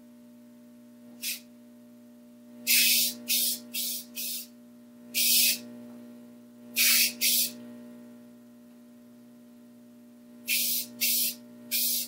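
Aerosol spray can of black engine paint hissing in about a dozen short bursts, each under a second, as it coats a small engine's finned cylinder head. The bursts come in clusters, with gaps of a second or more between them.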